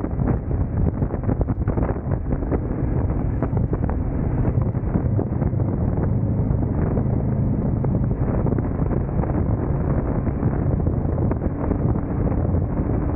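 Wind buffeting the microphone on a moving motorcycle, a steady rushing noise, with the motorcycle's engine running steadily underneath.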